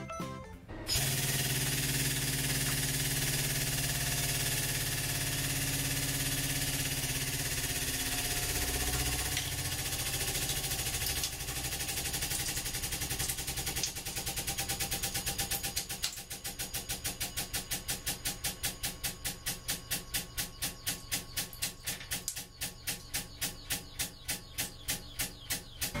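Hydraulic press running with a steady hum as its ram crushes a wooden block. About halfway through it turns into a regular pulsing of a few beats a second.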